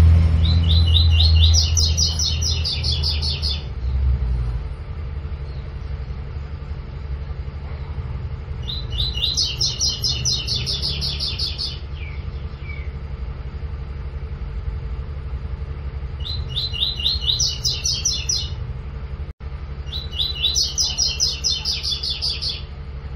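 Double-collared seedeater (coleiro) singing a 'tui tui' song: four phrases of fast, repeated high notes, each two to three seconds long and a few seconds apart, over a steady low rumble.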